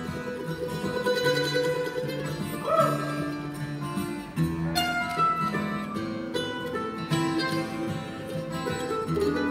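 Acoustic guitar and mandolin playing a bluegrass gospel tune together: quick plucked notes over steady guitar chords, with one brief bent note about three seconds in.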